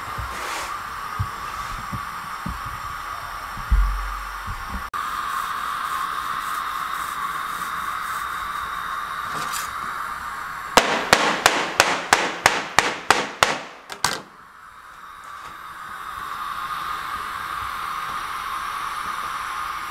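A knife chopping a roll of potato dough into bite-sized pieces against a wooden worktop: a quick run of about a dozen sharp knocks, about four a second, lasting about three seconds, over a steady background hum.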